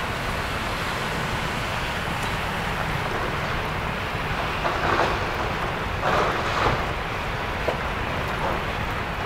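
Steady low rumble and hiss with wind on the microphone, with two brief louder noises about five and six seconds in.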